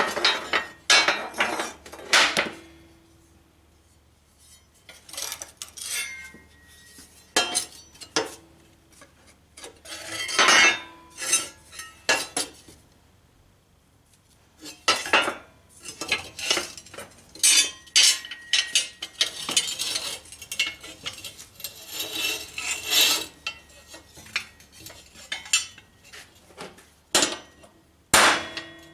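Hammer blows and metal clanks on a dented metal lawn mower bumper being straightened on a workbench: irregular strikes, some singles and some quick runs, with brief ringing, and a quiet gap of a couple of seconds twice.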